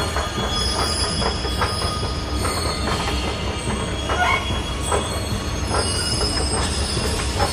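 Polybahn funicular car rolling in on its rails: a steady low rumble with clicks and knocks from the wheels and track, and a high wheel squeal at times.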